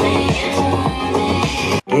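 Electronic pop music with a steady beat and heavy bass, cutting off abruptly near the end as the next track starts.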